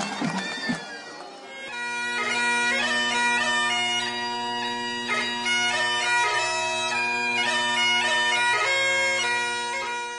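Crowd noise from the stands fades out over the first second and a half. Then bagpipe music starts: steady drones under a chanter melody, running to the end.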